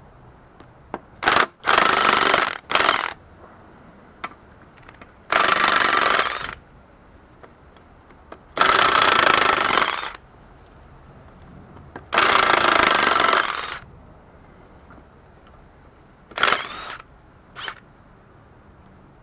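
Impact gun run in repeated bursts of about one to one and a half seconds, undoing the bolts of the transfer case's input-gear rear cover plate, with short blips of the trigger near the end.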